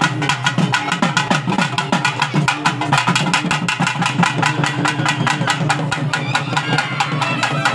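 Traditional Tamil festival drums played in a fast, even beat of sharp strikes, over a sustained low tone.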